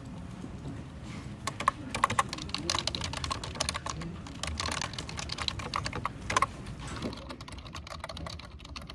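Typing on a computer keyboard with round white keycaps: quick, irregular key clicks, busiest in the middle and thinning out near the end.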